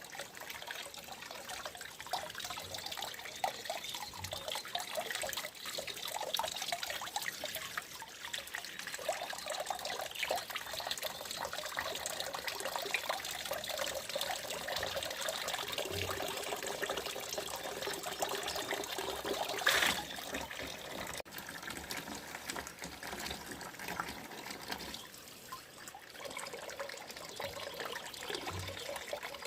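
Running water trickling and splashing steadily, with one brief louder moment about twenty seconds in.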